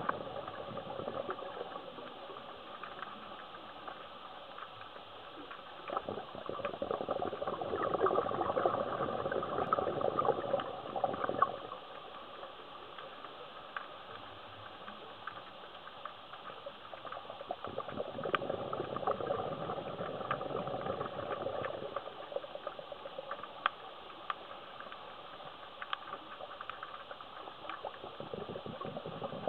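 Scuba diver breathing through a regulator underwater: three long rushes of exhaled bubbles, each lasting a few seconds, with a quieter hiss between them and scattered sharp clicks.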